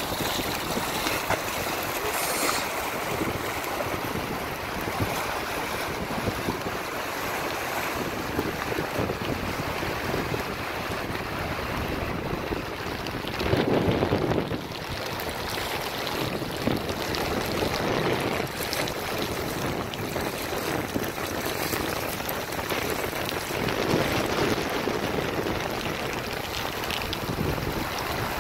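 Steady rush of river water with wind buffeting the microphone, and a brief louder swell about halfway through.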